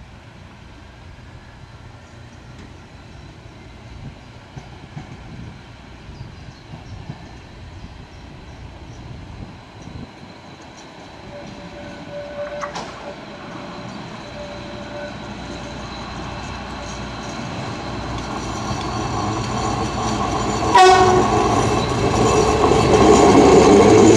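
Metre-gauge diesel railcars pulling away, their engine and wheel noise growing steadily louder as one draws near. The horn sounds faintly around the middle and gives a short, loud toot near the end.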